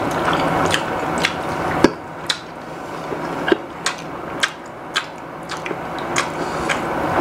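Close eating sounds: chewing and mouth smacks, with many sharp clicks and small taps at irregular intervals as food is picked and dipped in a sauce bowl.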